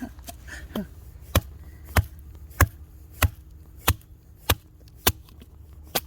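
Fiskars X7 hatchet chopping firewood: a steady run of about eight sharp strikes, evenly spaced, a little under two a second.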